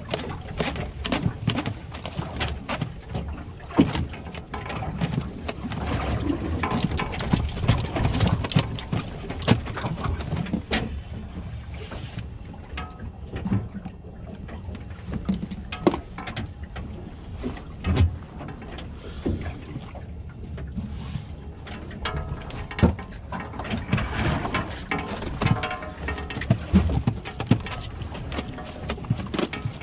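Boat-deck sounds: a steady rumble of wind and water, with many scattered knocks and clicks on the deck.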